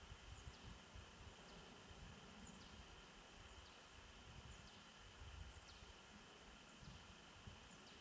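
Near silence: a faint, uneven low wind rumble, with thin, high, falling bird calls about once a second.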